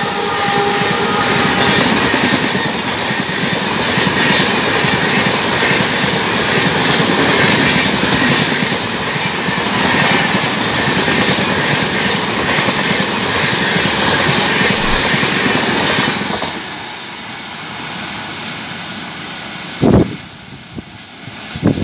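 Indian Railways Janshatabdi Express coaches passing on the track: a steady loud rushing and rattling of wheels on rail, with the tail of the locomotive's horn fading out in the first second. About 16 seconds in the train noise drops away to a quieter steady background, broken by two low thumps near the end.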